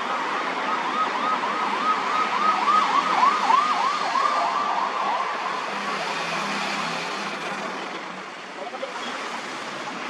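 Ambulance siren in a fast yelp, rising and falling about three times a second. It is loudest a few seconds in and fades out about halfway through. Under it runs the steady noise of heavy road traffic.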